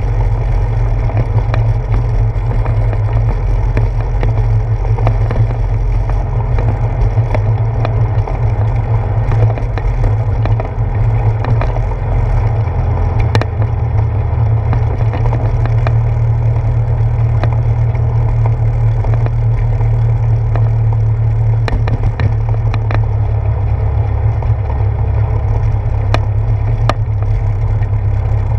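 A bicycle rolling over a wooden boardwalk: a steady low rumble from the tyres and frame, picked up through a handlebar-mounted action camera, with scattered small clicks and rattles.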